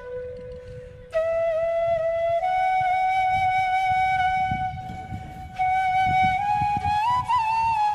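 Background music: a solo flute melody of long held notes that slide between pitches, pausing briefly near the start before the next phrase comes in about a second in.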